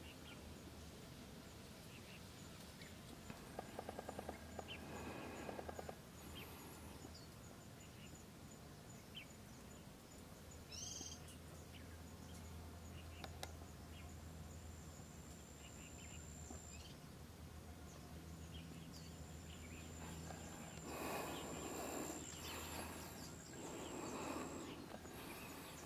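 Faint outdoor ambience: scattered short bird chirps, a thin high steady insect-like whine in the second half, and a low steady hum underneath. There is a fast run of ticks about four seconds in and a few louder bursts of noise near the end.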